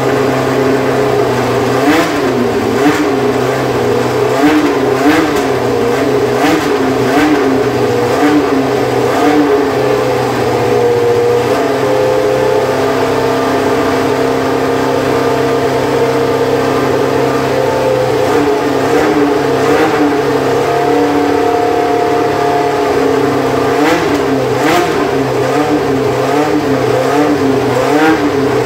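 Williams FW08 Formula 1 car's Cosworth DFV V8 running, its throttle blipped over and over so the pitch rises and falls about twice a second, with sharp crackles in between. For several seconds in the middle it holds a steady note, then the blipping starts again.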